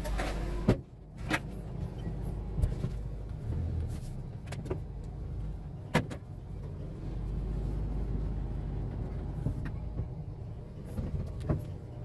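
Suzuki Carry pickup's engine idling, a steady low hum heard from inside the cab, with a few sharp knocks and clicks in the cab; the loudest comes just under a second in and another about six seconds in.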